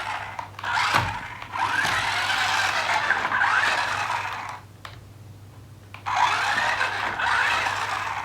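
Toy RC monster truck's small electric drive motor whirring in three spurts as it is driven by remote, its whine rising and falling in pitch, with a quieter pause of about a second and a half before the last spurt.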